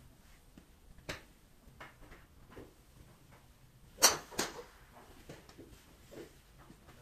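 Sharp clacks of golf balls being struck at a driving range: a fainter one about a second in, then a loud pair close together about four seconds in.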